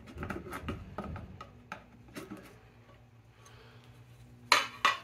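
Lid of a metal gallon can being pried off with a screwdriver: a run of light metallic clicks and taps, then a loud metal clank near the end as the lid comes away.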